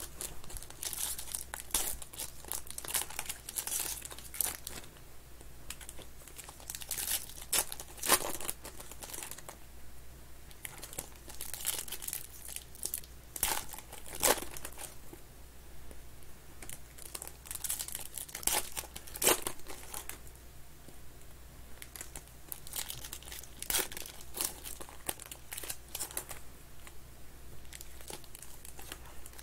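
Foil wrappers of 2021 Panini Contenders football card packs crinkling and tearing as they are ripped open by hand, in irregular bursts of crackle.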